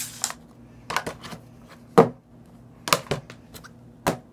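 Plastic Blu-ray cases being handled and set down on a table: a series of sharp clacks and knocks, the loudest about two seconds in.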